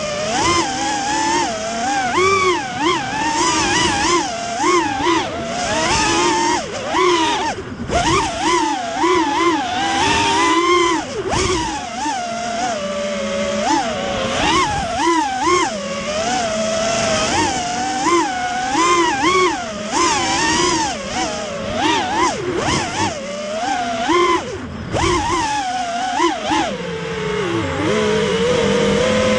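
Brushless motors of an FPV racing quadcopter whining, the pitch swinging up and down several times a second with the throttle. Near the end the pitch settles lower and steadier.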